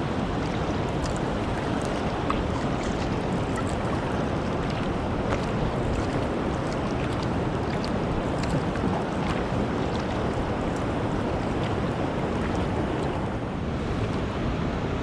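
Steady rush of river water with many small splashes and drips, and wind rumbling on the microphone.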